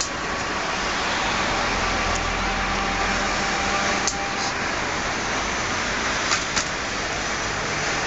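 Steady street noise of an old-type tram running along its rails amid passing car traffic, with a few sharp clicks about halfway through and twice more a couple of seconds later.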